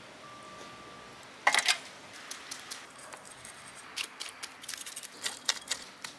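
Cleaver blade scraping the scales off a whole fish: a loud burst of rasping scrapes about a second and a half in, then a run of quicker, lighter scrapes and clicks.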